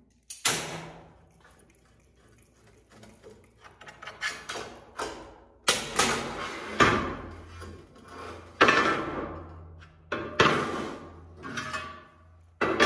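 Steel pieces clanking down onto a steel welding table, a string of about eight sharp clangs, each ringing on briefly, with softer knocks between them.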